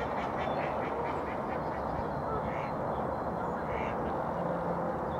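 Ducks quacking: a quick run of short calls in the first second, then two single calls about a second apart, over steady low background noise.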